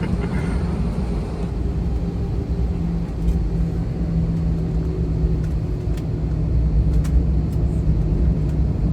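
Cabin noise of a jet airliner taxiing: a steady low rumble from the engines and the rolling of the plane, with a steady hum under it.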